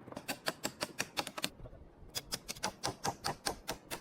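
Hammer strikes driving nails into wooden beams: quick, sharp taps about five a second, in two runs with a short pause about a second and a half in.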